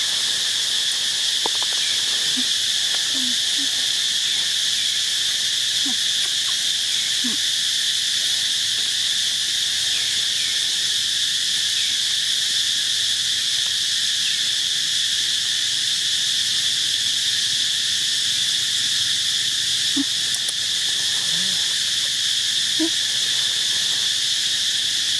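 Steady chorus of insects: an unbroken high-pitched buzz that never lets up, with a few faint short low sounds now and then.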